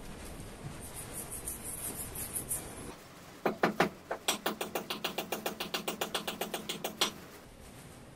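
A toothbrush scrubbing the steel lathe spindle and pulley with solvent in quick strokes. About three and a half seconds in, it gives way to a louder run of sharp, evenly spaced clicks, about five a second, lasting about three and a half seconds.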